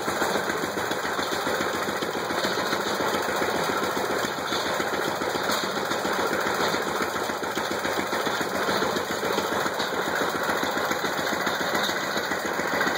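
IHC LBBR 3-5 hp single-cylinder engine running steadily under load, driving a Lilliston hay baler, with rapid even firing strokes. A lighter tick comes about once a second.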